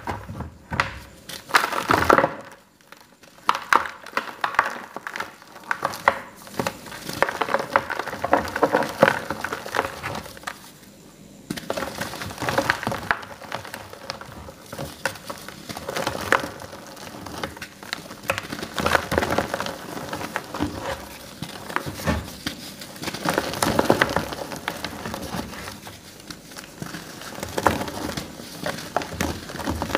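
Paint-coated blocks of reformed gym chalk being crushed and crumbled in bare hands: dense, irregular crunching and crackling with dry, powdery crumbles, coming in uneven bursts with a brief lull about eleven seconds in.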